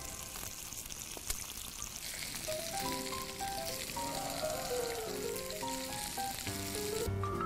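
Sea bass pan-frying in oil with sliced garlic and green chili, a steady sizzle that cuts off near the end. Light background music comes in a couple of seconds in.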